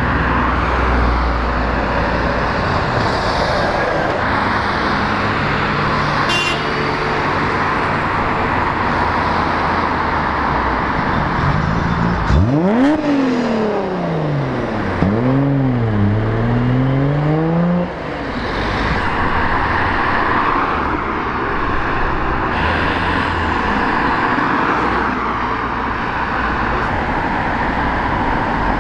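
Continuous noise of a stream of cars driving past. About twelve seconds in, one car's engine is revved hard: its pitch climbs steeply, drops, and climbs again three times over some five seconds, then cuts off.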